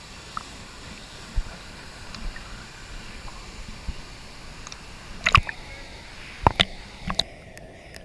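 Steady rush of a waterfall heard from a camera at the surface of its plunge pool, with water lapping at the camera. In the second half, several sharp splashes of water against the camera are the loudest sounds.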